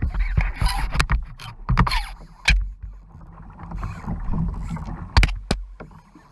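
Water sloshing against a kayak hull as the kayak is towed backwards by a hooked fish, with wind buffeting the microphone. Sharp knocks come from handling the rod, reel and camera.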